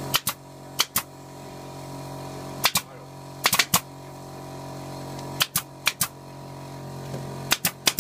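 Pneumatic nail gun firing nails into thin wooden lath strips: about fifteen sharp shots in quick pairs and threes with pauses between, over a steady low hum.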